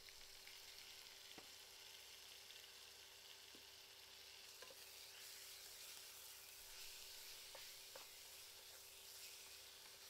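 Minced meat frying with a faint sizzle in a small saucepan, stirred with a plastic spatula that taps and scrapes against the pan a few times.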